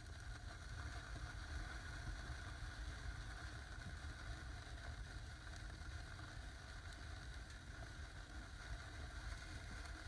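Small indoor fireplace firework fountains burning on a grate: a steady low rumble and hiss, with faint scattered crackles of sparks.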